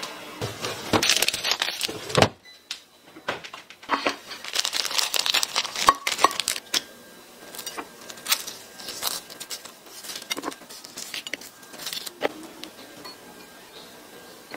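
Kitchen handling sounds: a rustling clatter at the refrigerator about a second in, then a string of light clicks, knocks and rustles as hot dogs and ham slices are handled on a plate.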